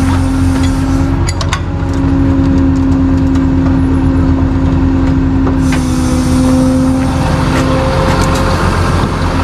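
A vehicle engine running at a steady speed with a steady mechanical whine over it during a winch recovery. There are a few short clicks about a second in.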